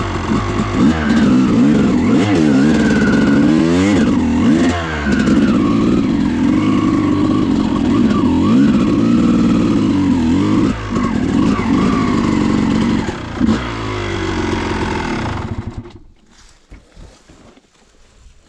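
A freshly rebuilt 2000 Yamaha YZ250's single-cylinder two-stroke engine running and revving up and down several times. The engine sound stops abruptly about sixteen seconds in.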